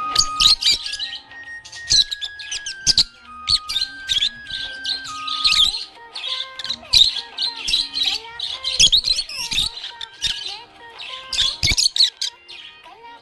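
Budgie chirping rapidly in quick runs with short pauses, over a simple tune of held notes stepping up and down.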